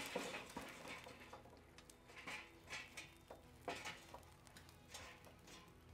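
Glowing compressed charcoal logs poured out of a chimney starter into a grill's charcoal basket: faint, scattered clicks and crackles as the hot pieces tumble and settle.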